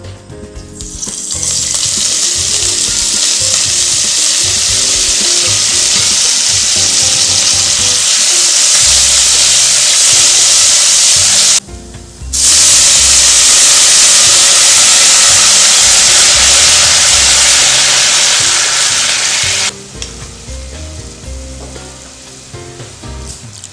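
Burdock root strips sizzling in hot perilla oil in a pot: a loud, steady hiss that breaks off for a moment about 12 seconds in, starts again and stops about 20 seconds in.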